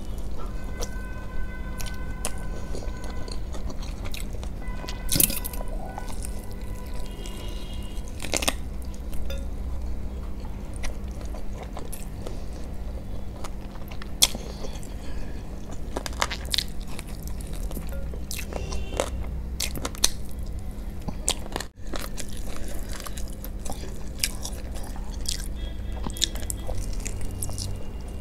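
Close-miked eating sounds: biting, chewing and wet mouth clicks on sauced fried chicken lollipop, with a few sharper crunches. A steady low hum runs underneath.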